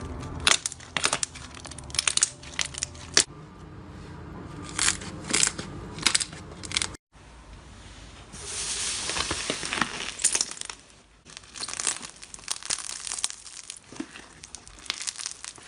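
Slime handled by hand, giving irregular sticky clicks, crackles and pops, with a stretch of denser crackling in the second half.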